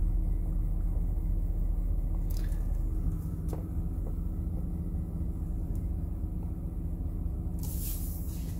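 Steady low hum of a GMC Savana cargo van's engine idling, heard from inside the cab, with a brief hiss near the end.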